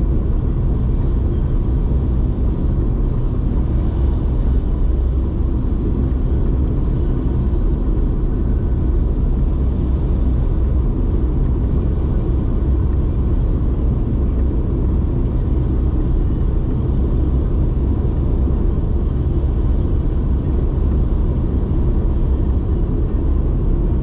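Steady low road rumble of a Toyota Aygo being driven at a constant speed: engine and tyre noise heard inside the car, with no change in pitch or level.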